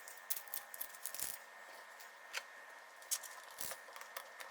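Small metal RC car drivetrain parts and tools being handled on a workbench: scattered light clicks and taps, with a faint steady hum underneath.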